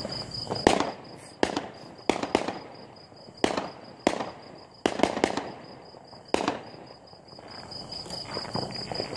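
Fireworks exploding: about nine sharp bangs at irregular intervals, some in quick pairs, with the last one a little over six seconds in.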